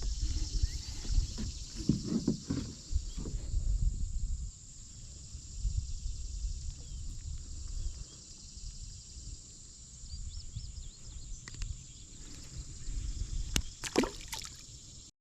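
Kayak handling noise: low knocks and rumbling, strongest in the first few seconds, over a steady high hiss, with a few sharp clicks near the end.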